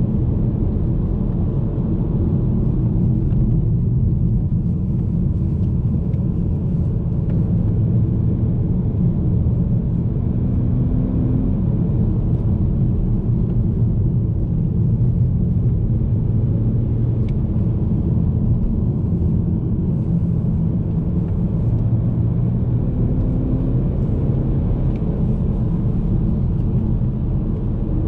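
The 2.0-litre N46 four-cylinder engine of a BMW E90 320i running steadily while the car drives, heard inside the cabin along with low road and tyre rumble, with small rises in engine pitch as the throttle changes.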